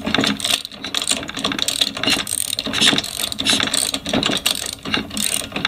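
A socket ratchet clicks in quick, irregular runs as it turns over a Honda HRM215 lawn mower engine by hand, the crankshaft working against compression. The engine, which had seized from running with no oil, now turns freely with fresh oil in it.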